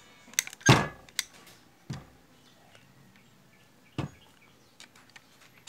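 Metal clicks and knocks from a Stanley Heavy Duty hand riveter being handled and worked during reassembly: a sharp clack about a second in, a few lighter knocks after it, and faint ticks near the end.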